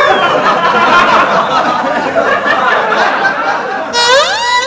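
Comedy sound effects: a loud, dense jumble of chuckling, voice-like sound. About four seconds in, a siren-like wail of several tones slides up and then falls away.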